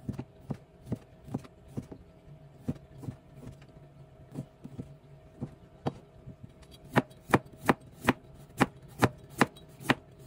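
A knife chopping food on a plastic cutting board, slicing luncheon meat and carrot, each stroke a sharp knock of the blade on the board. The strokes come unevenly at first, then from about two-thirds of the way in settle into a louder, even run of about two to three a second, over a faint steady hum.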